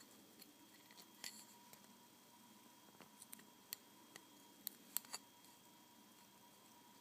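Faint, scattered small clicks and taps from handling tools and pin headers while soldering a circuit board, about ten in all, bunched between about one and five seconds in. A faint steady tone runs beneath them.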